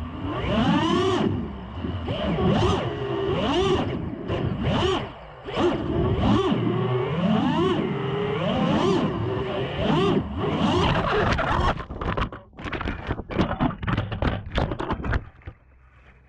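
FPV racing quadcopter's four brushless motors (iFlight Xing-E 2450 KV on a 4S pack) revving up and down in pitch with throttle changes. In the last few seconds a rapid run of hits and clatter as the quad strikes grass and brush, and then the motors fall quiet.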